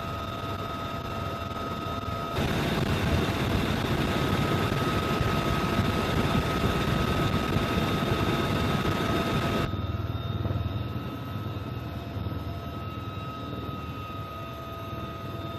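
UH-1Y Venom helicopter running: a steady turbine whine over rotor and airflow noise, with no gunfire. The sound steps up abruptly about two seconds in and drops back abruptly near ten seconds in.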